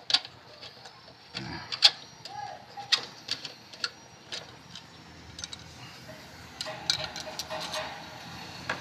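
Irregular light clicks and knocks of a Suzuki Alto 800's throttle body and its fittings being handled as it is lifted off the engine.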